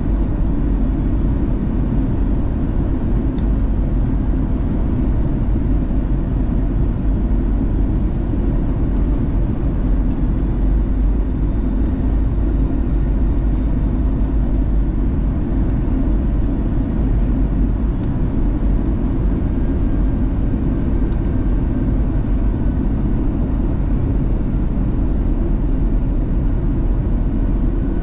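Airbus A320 cabin noise: a steady rush of jet engine and airflow noise, heavy in the low end, with no change in pitch or level.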